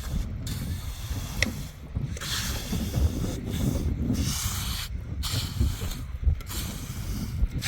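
Wind buffeting the microphone with a ragged low rumble, and rushes of hiss that come and go about once a second.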